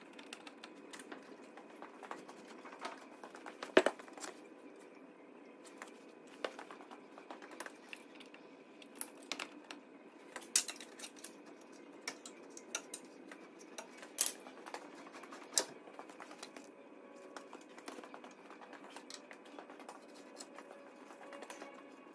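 Irregular light metallic clicks and knocks, with a sharper knock about four seconds in and a few more spread through, as a tractor's engine and gearbox are eased apart on jacks in a workshop.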